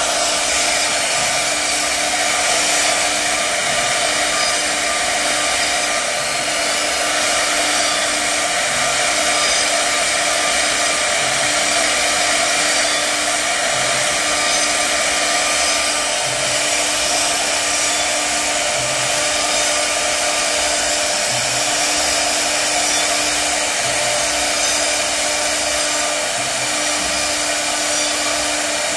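CNC router spindle carving a wooden pillar on the machine's rotary axis: a steady high-speed whine over a constant rush of cutting noise, with a lower hum that drops out briefly every two to three seconds.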